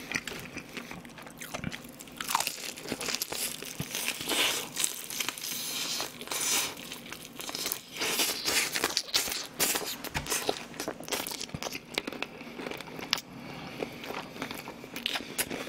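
Close-miked crunching bites into crispy battered fried chicken and chewing, with many irregular crackles from the crust.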